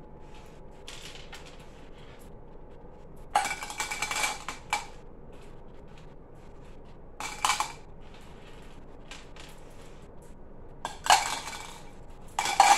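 Handfuls of small hard candies dropped into clear cups, clattering in short bursts of clicks about four times, with quiet picking between.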